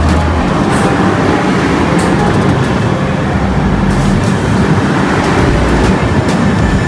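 LHB passenger coaches of a train running past at speed: a loud, steady rumble of wheels on rails, with faint clicks scattered through it.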